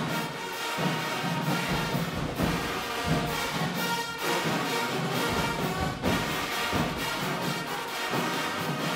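High school marching band playing: brass over drums and percussion, with regular drum hits.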